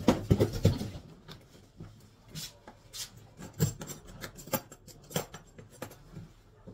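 A Crown plastic tool case scraping and knocking against its cardboard box as it is lifted out and set down, loudest in the first second. Then a few separate sharp clicks and knocks as its latches are snapped open and the lid is lifted.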